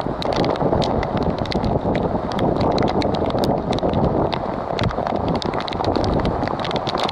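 Strong wind buffeting the microphone over the steady rush of a heavy rainstorm, with many irregular sharp taps of raindrops striking the camera.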